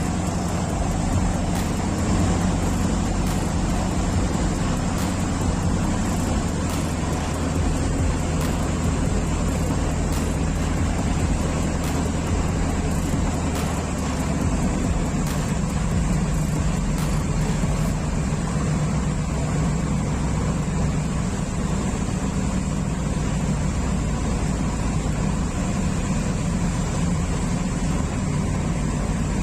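Pilot boat's engines running steadily under way: a constant low hum.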